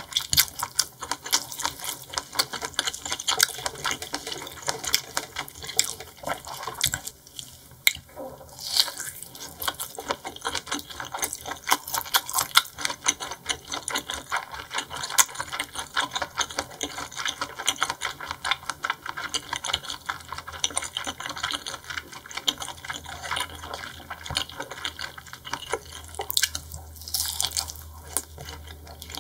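Close-miked wet chewing and mouth smacking while eating seafood: a dense run of moist clicks and squelches, many a second, with a couple of short pauses.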